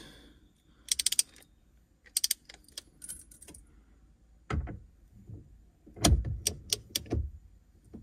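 Metallic clicks and clinks of a torque wrench, extension and 24 mm socket being handled and fitted together, in scattered short groups. Heavier knocks come from about four and a half seconds in, with a quick run of clicks near the end.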